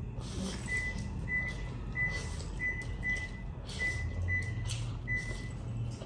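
Instant noodles being slurped and chewed, with a run of short, high, even-pitched peeps about every half-second to three quarters of a second.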